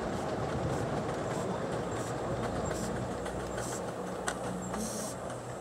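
Model LNER A4 locomotive running along garden railway track, a steady rumble of wheels on rail with faint clicks. A short hiss comes about five seconds in.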